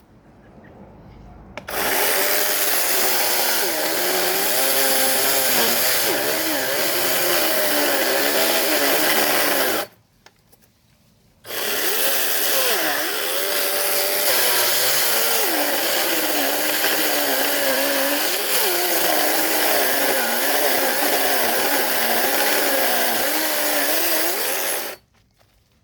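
A power saw running as it cuts through tree branches, in two long runs of about eight and thirteen seconds. Its pitch wavers up and down as it works, and each run stops abruptly.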